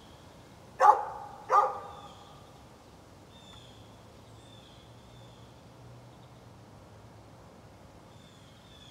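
A dog barks twice in quick succession about a second in, then falls silent.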